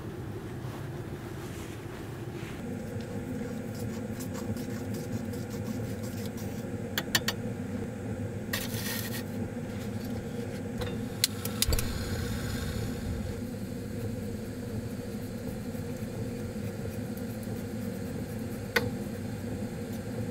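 Small cooking sounds: a few sharp metal clicks and clinks of a utensil, one about every two seconds in the middle and one near the end. Under them a steady low hum starts a couple of seconds in and keeps going.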